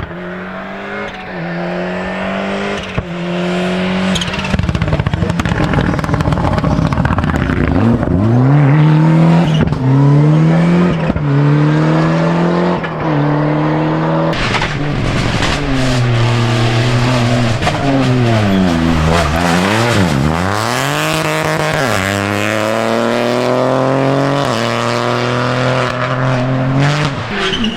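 Rally car engine running hard and upshifting several times, with short sharp cracks around the middle. Near the end the engine pitch falls steeply as the car brakes and downshifts, then it climbs through the gears again.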